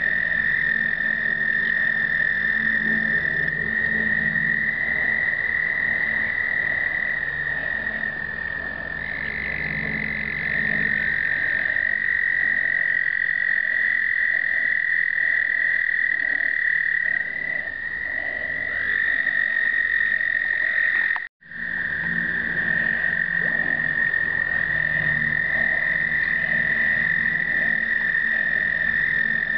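Chorus of male American toads giving their breeding trills: several long, steady, high trills overlapping at slightly different pitches. The sound drops out for a moment about two-thirds of the way through.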